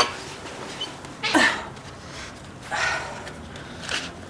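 A woman's short breathy grunts and sighs, a few of them about a second apart, as she gets up off a bed, over a low steady room hum.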